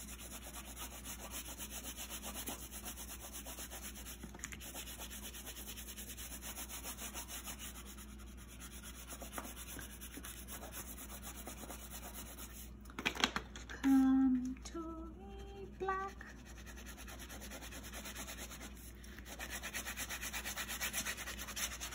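Wax crayon rubbed rapidly back and forth on paper, a steady scratchy shading of many quick short strokes as a large area is coloured in. About two-thirds of the way through, a person briefly hums a few notes.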